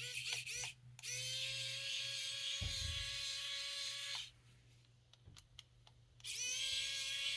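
Power screwdriver backing screws out of a chainsaw carburettor. It opens with a few quick trigger blips, then the motor runs steadily for about three seconds and stops. After a pause with a few light clicks, it starts running again about six seconds in.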